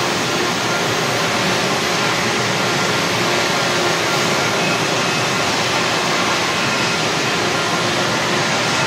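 Steady, loud roar of steam power plant machinery and pipework, with a few faint steady whining tones inside the noise.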